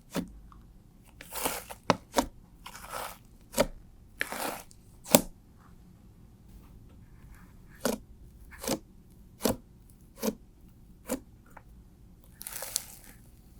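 Hands pressing and squishing a fluffy shaving-foam slime, giving a series of short, crunchy squishes. They come unevenly at first, then about one every 0.8 s, with a longer crackling squish near the end.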